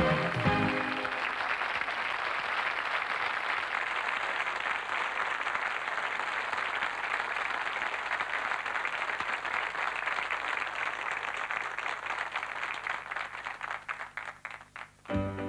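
Studio audience applauding, a steady wash of clapping that thins into scattered separate claps and dies away near the end. Music starts just as it fades out.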